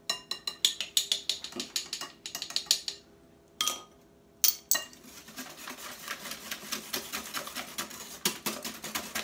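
Metal balloon whisk beating eggs, sugar and vanilla in a glass mixing bowl: rapid clicking and rattling of wire against glass. It pauses about three seconds in for two single clinks, then starts again as a steady, quicker patter.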